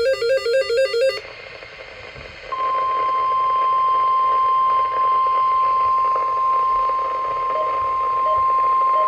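Emergency alert broadcast audio: a harsh, rapidly warbling electronic data burst for about a second, then a moment of radio hiss, then the long single-pitch warning alarm tone of a weather radio alert, steady and loud, announcing a tornado warning.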